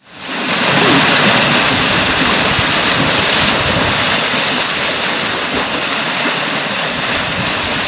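Steady rush and splashing of water churned up by a herd of African elephants wading through a shallow waterhole, fading in over the first half second.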